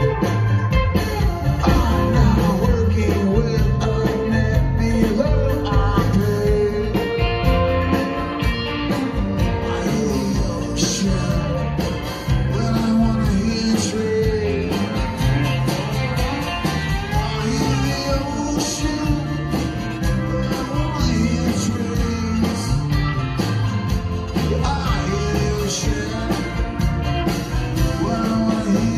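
Live rock band playing: a man singing lead over acoustic and electric guitars and drums, with steady drum hits.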